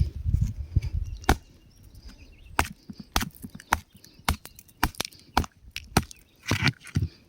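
Rock crumbling and cracking apart: an irregular run of sharp cracks and snaps, with heavier low thuds during the first second or so.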